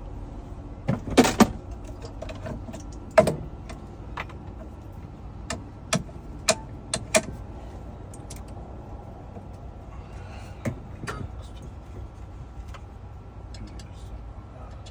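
Sharp metallic clicks and clacks as an H51 key blank is handled and set in a key-cutting machine, scattered through the stretch over a steady low hum.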